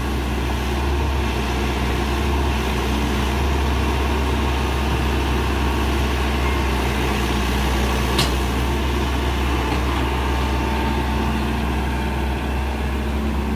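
Sumitomo SH120 A1 excavator's diesel engine running steadily, with a single short click about eight seconds in.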